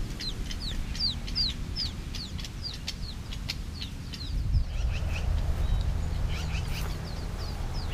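Baby birds peeping: rapid, repeated high chirps, each falling in pitch, about three a second, growing fainter about halfway through, over a low rumble.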